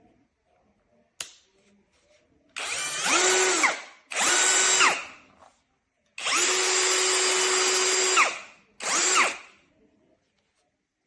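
A sharp click, then a 21V cordless drill driver's motor running in four bursts: one about a second long that speeds up partway through, a shorter one that winds down, a steady run of about two seconds, and a brief last one. The pitch rises as the motor spins up and falls as it coasts to a stop.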